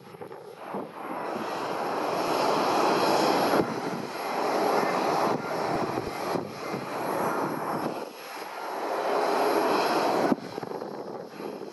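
Airliner's engines as it passes along the runway: a rushing noise that swells over the first three or four seconds, holds loud with some waver, then cuts off suddenly about ten seconds in.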